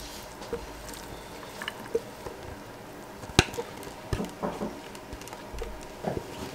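Shredded coleslaw sliding and dropping out of a tipped stainless-steel Thermomix mixing bowl into an enamel bowl, with a few soft wet squishes and light taps and one sharper click about three and a half seconds in.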